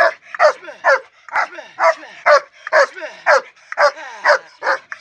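German Shepherd dog barking over and over in play, about two barks a second, each bark falling in pitch.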